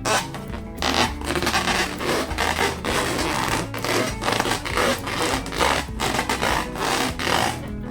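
Background music with held bass notes, with a dense scratchy rubbing noise over it.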